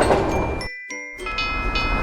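Rumble of a passing train that drops out abruptly a little over half a second in. After a brief gap, a railroad crossing bell starts ringing at about three to four strikes a second, over a train's rumble.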